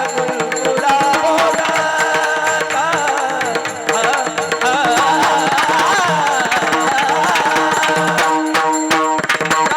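Varkari kirtan music: a melodic singing line over steady sustained accompanying tones, with mridang drumming that grows busier in the last couple of seconds.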